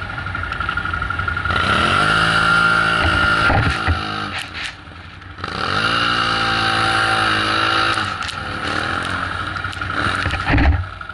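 ATV engine revving hard in two long pulls as the quad churns through deep snow; each pull rises in pitch and then holds high. A couple of thuds near the end.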